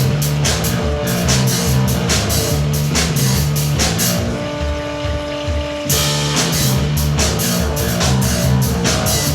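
Live rock music played on keyboards and a drum kit, with a steady beat and a bass line. About four seconds in, the drums drop out for a second and a half, leaving a held keyboard chord, and then the full band comes back in.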